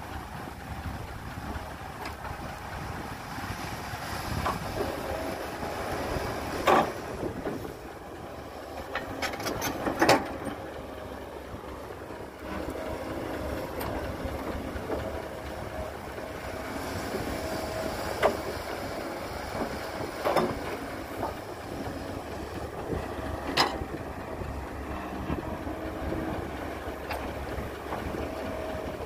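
Caterpillar 312B excavator working under load, digging soil and loading a dump truck: a steady engine and hydraulic drone with a faint steady whine, broken about five times by sharp metallic clanks from the bucket and boom.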